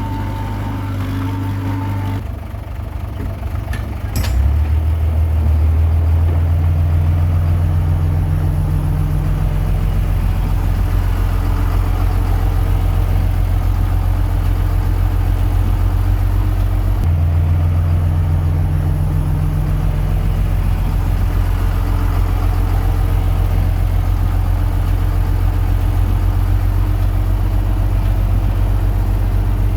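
Komatsu D21P crawler bulldozer's diesel engine running under load. It eases off about two seconds in, comes back up with a sharp click just after four seconds, and holds steady, its note shifting once near the middle.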